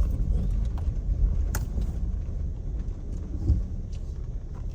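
Car driving: a low road rumble with a few faint clicks, slowly getting quieter.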